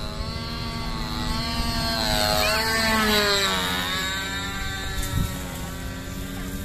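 OS model-aircraft engine of an RC P-51 Mustang running at high revs in a pass overhead. It grows louder, and its pitch falls as the plane goes by about three seconds in.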